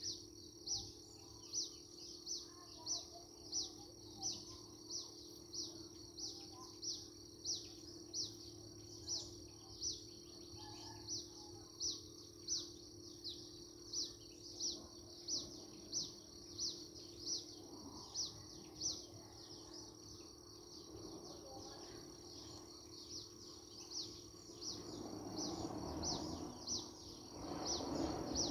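Countryside ambience: a high, even chirp repeating nearly twice a second over a steady high drone of birds or insects, with a faint low hum beneath. Near the end a soft rushing noise swells up.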